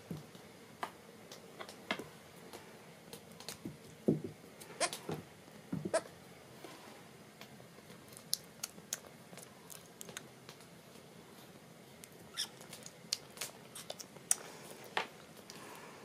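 Scattered light taps and clicks of a newborn goat kid and a dog moving about on a wooden floor, with a few louder knocks.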